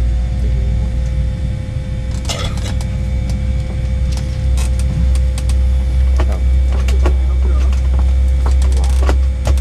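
Steady low rumble and constant hum in the cabin of a Boeing 787-9 as it is pushed back from the gate, with a few faint clicks.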